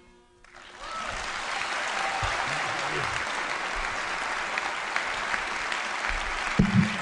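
The last ring of a dotar fades out, and about half a second in an audience breaks into applause that runs on steadily.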